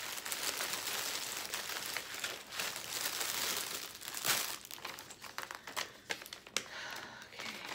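Clear plastic bag packed with small plastic packets of diamond-painting drills crinkling as it is handled and rummaged through. After a sharp crackle about four seconds in, there is sparser, lighter rustling and crackling as a folded paper sheet is pulled out and opened.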